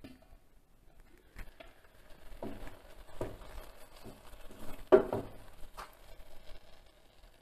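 A spoon stirring sautéed porcini slices in a stainless steel pan: soft scrapes and a handful of light knocks against the pan, the loudest about five seconds in.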